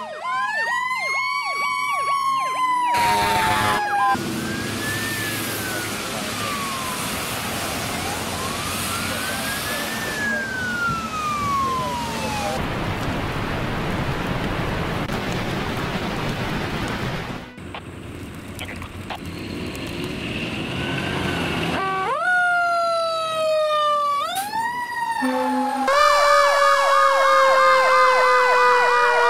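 Fire engine sirens. First a wail that rises and falls, then a long stretch of hissing noise with faint distant sweeps. After that the wail comes back, and near the end a fast yelping warble sounds over a slowly falling tone.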